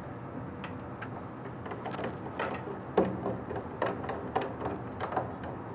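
Scattered light clicks and knocks as the paper roller core is fastened into the metal holders of a DTF film take-up device, over a steady low machine hum.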